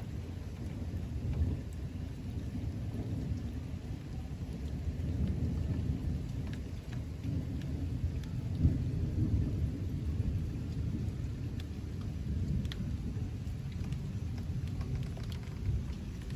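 Thunder rumbling continuously and unevenly, with rain falling.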